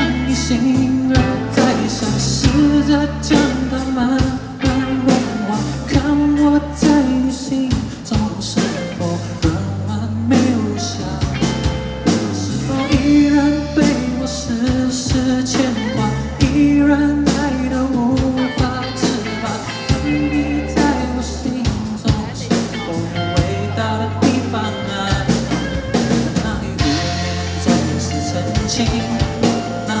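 Live rock band playing a mid-tempo song: drum kit keeping a steady beat under bass and a melody line.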